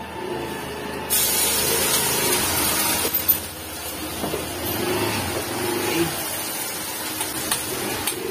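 Krill-shrimp fritter (ukoy) batter dropped into hot cooking oil in a pan, sizzling sharply from about a second in, then easing to a steady sizzle. A brief knock about three seconds in.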